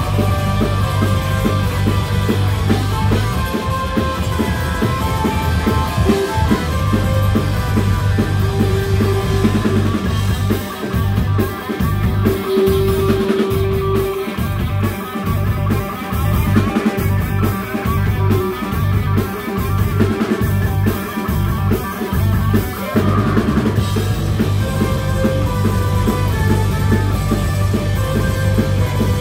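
Live rock band playing: electric guitars, bass guitar and drum kit. About ten seconds in, the low end drops to short, evenly spaced stop-start hits, and the full band comes back in near the end.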